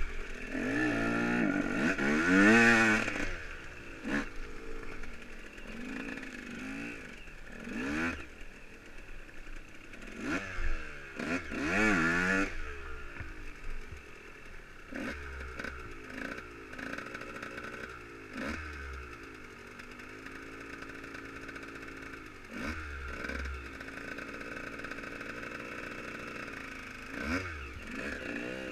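Dirt bike engine revving up and easing off several times, then idling steadily through the second half. Another motorcycle's engine rises near the end.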